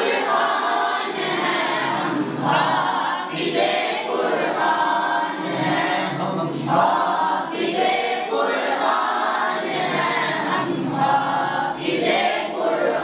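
A chorus of young male voices singing a devotional tarana together in unison, in short repeated phrases.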